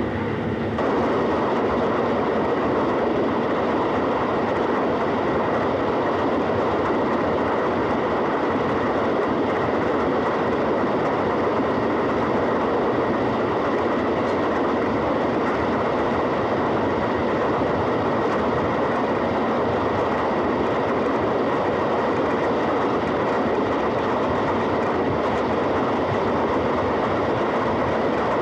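Steam express hauled by an LNER A4 Pacific running at speed: a steady, loud, unbroken rush of train noise with rapid clatter from the wheels and track.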